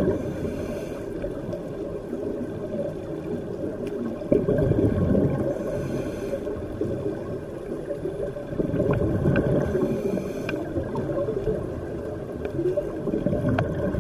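Scuba diver breathing through a regulator, heard underwater: a hiss on each inhale and a bubbling rumble of exhaust bubbles on each exhale, repeating about every four to five seconds, with a few faint clicks.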